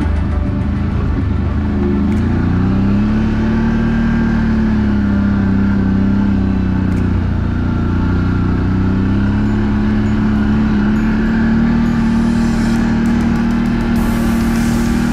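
CFMoto CForce ATV engine running as the quad rides along a snowy trail, its pitch sagging slightly and then rising again as the throttle changes.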